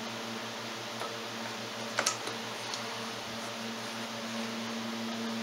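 A few light metallic clicks as a wheel hub with its brake disc is handled and slid onto the axle splines, the sharpest about two seconds in, over a steady hum.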